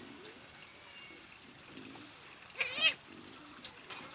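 A kitten meows once, a short rising-and-falling call about two and a half seconds in, over a faint steady hiss.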